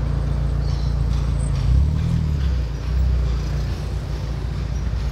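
Low, steady rumble of car traffic on a city street, swelling briefly about two seconds in and again around three seconds.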